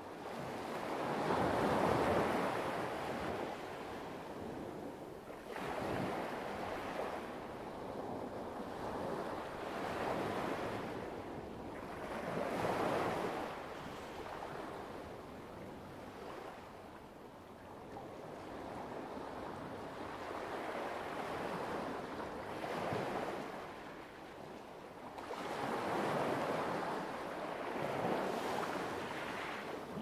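Light waves washing onto a pebble beach. Each wave swells up and falls away, several times over, a few seconds apart.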